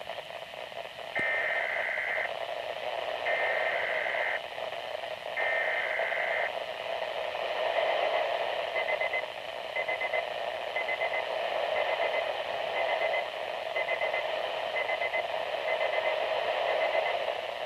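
Weather radio alert over a steady radio hiss: three digital SAME header bursts, each about a second long, followed by short high beeps repeating roughly once a second.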